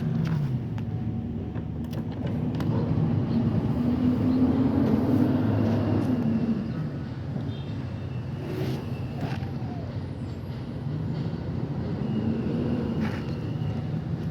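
Garbage truck's diesel engine running, revving up and settling back twice, with a few sharp clanks.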